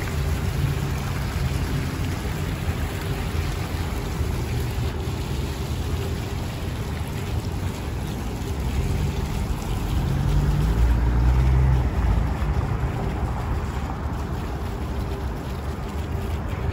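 Steady city noise: road traffic running past and small fountain jets splashing into a pool, with a louder low rumble about ten seconds in.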